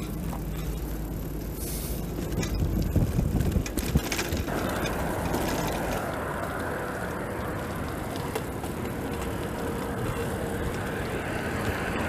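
Bicycle being ridden: wind on the microphone mixed with tyre and road noise, with a few louder knocks and rattles about three to four seconds in. The sound changes abruptly a little after four seconds.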